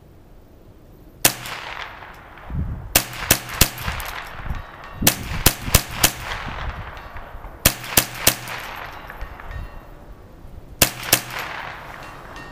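Ruger 10/22 Tactical semi-automatic .22 LR carbine firing about fourteen shots: a single shot, then quick strings of four, four, three and two, each sharp crack trailing off briefly.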